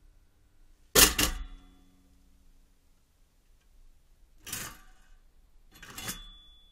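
Pop-up toaster springing up: a sharp double metallic clack with a springy ringing after it about a second in, the loudest sound. Two softer scraping clatters follow a few seconds later.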